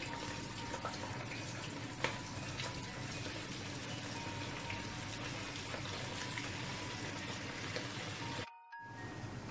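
Marinated, cornflour-coated chicken pieces frying in hot oil over a low flame: a steady sizzle, with a short sharp click about two seconds in. The sound drops out for a moment near the end.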